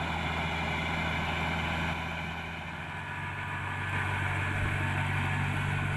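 Diesel engine of a farm machine running steadily under load, easing a little about halfway through, then picking up again.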